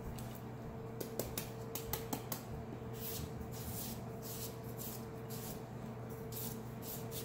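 Kitchen knife chopping into a peeled green papaya held in the hand, Thai-style shredding for papaya salad. A quick run of sharp taps comes about a second in, then shaving strokes at about two a second.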